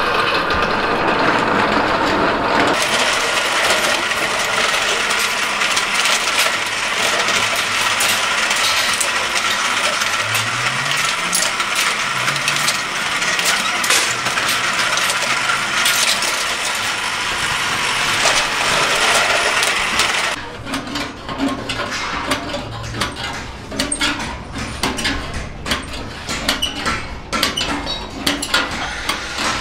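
Steel sheet being curved through a sheet-metal rolling machine: a steady loud metallic grinding and rattling of the sheet against the rollers with many sharp clinks. About 20 seconds in it gives way to irregular sharp metal knocks and clanks.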